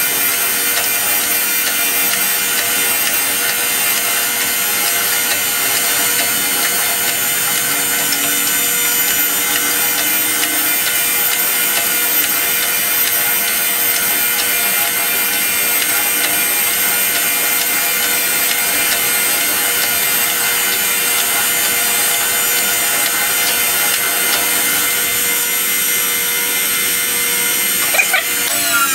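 Reid surface grinder running, its wheel grinding a metal workpiece with a steady hiss over the even whine of the spindle motor as the table traverses back and forth.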